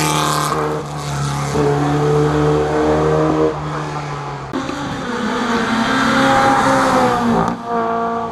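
Rally car engine running hard at high revs up a hill climb, its note breaking and changing pitch at gear changes a few times.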